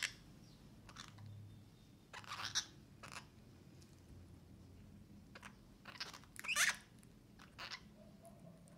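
Orange-fronted parakeets pecking at and crunching seed-covered bread and fruit. About eight short, sharp crunches and clicks come at irregular intervals; the loudest are at the very start and about two-thirds of the way through.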